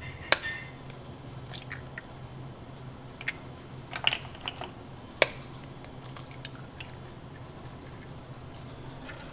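Eggs being cracked for pasta dough: a few sharp cracking taps, the loudest about a third of a second in and again about five seconds in, with smaller crackles around four seconds, over a steady low hum.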